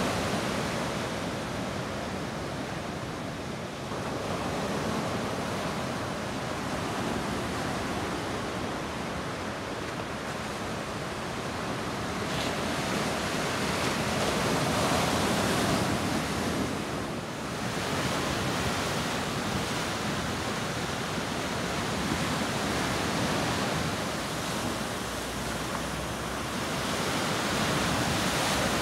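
Ocean surf breaking on a sandy beach and washing up the shore: a continuous rush that swells and eases over several seconds.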